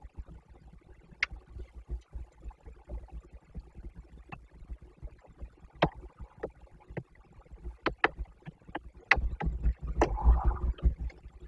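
Raindrops tapping irregularly on a nest-box webcam and its housing, a scattered sharp tick every half second or so. Near the end a gust of wind rumbles on the microphone.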